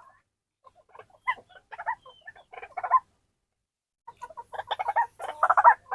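White-breasted waterhen calling in rapid runs of harsh, repeated notes. There are two bouts: one from about a second in to three seconds, and a louder one from about four seconds on.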